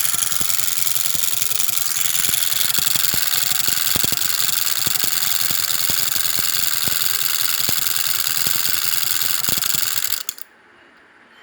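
Hero Honda Splendor's single-cylinder four-stroke engine idling, with a rapid abnormal clicking and knocking over the engine note that is attributed to the magneto coil. The sound stops abruptly about ten seconds in.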